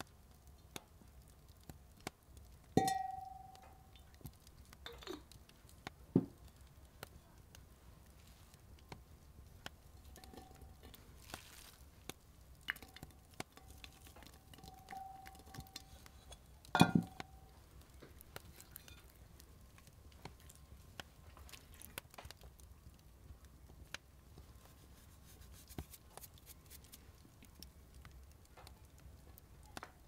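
Glazed clay cookware being handled: a few sharp clinks and knocks of ceramic on ceramic, the loudest about 17 s in and others near 3 and 6 seconds. Two of them leave a short ringing tone. Between them come soft ticks and rustles of chopped onion dropped by hand into a clay pot.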